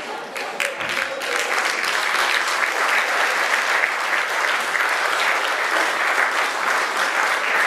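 Audience applauding: a few scattered claps swell within the first couple of seconds into steady, full applause.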